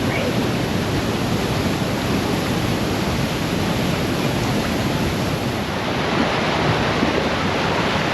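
Waterfall pouring into its pool: a steady, unbroken rush of falling water, a little louder from about six seconds in.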